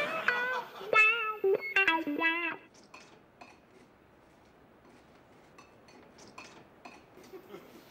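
Short guitar music sting, a few quick notes with bent, wavering pitch. It cuts off after about two and a half seconds and leaves faint scattered small clicks.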